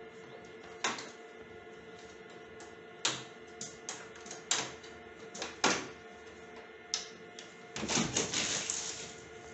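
Plastic clicks and snaps from the front panel and air filters of a split air conditioner's indoor unit being handled: about eight separate sharp clicks, then a rattling plastic clatter near the end as the panel is lifted.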